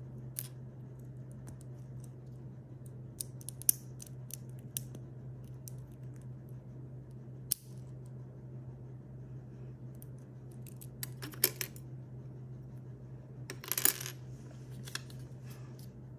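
Hard plastic LEGO Technic pieces clicking and clacking as they are handled and fitted together, an axle pushed through a beam. The clicks are scattered singly, with a quick cluster about two-thirds of the way through and another near the end, over a steady low hum.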